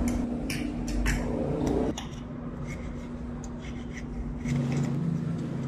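Knife and fork cutting through a huarache on a plate, the cutlery scraping and clicking against the plate, with the sharpest clicks in the first couple of seconds. A steady low hum runs underneath.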